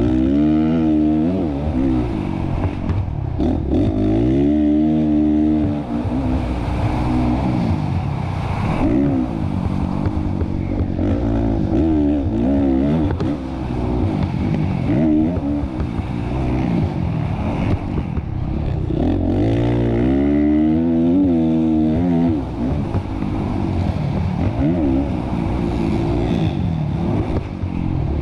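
Motocross bike engine heard from onboard, revving hard and dropping back over and over as the rider accelerates, shifts and rolls off around the track.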